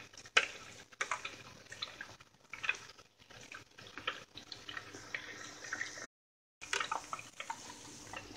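Egg-battered cookies deep-frying in hot oil in a steel pan: a steady sizzle full of small crackling pops. The sound cuts out completely for about half a second around six seconds in.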